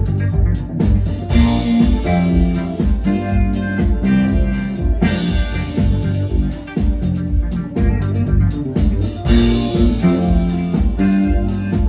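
Live jazz-funk band playing: a groovy bass guitar line and electric guitar over a drum kit with a steady kick-drum beat.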